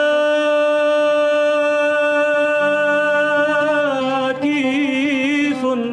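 Male singer holding one long sung note of a Lebanese song, then ornamenting it with quick wavering turns near the end. An oud plays low notes underneath from about halfway.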